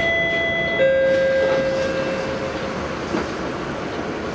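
Two-note door chime on a Volvo B9TL Wright double-decker bus, a higher note then a lower one that rings out and fades over about two seconds, sounding as the front door closes, with a light knock about three seconds in. Underneath runs the steady idle of the bus's diesel engine.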